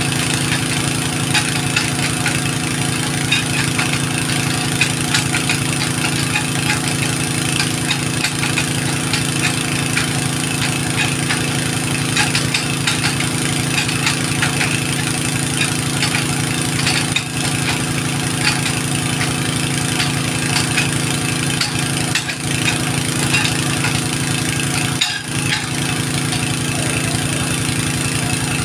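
A small-to-medium engine running steadily at idle, with a fast, even ticking beat.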